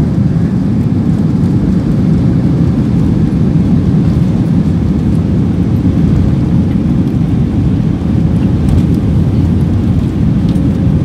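Jet airliner's engines and airflow heard from inside the passenger cabin as the plane rolls along the ground: a loud, steady, low rumble.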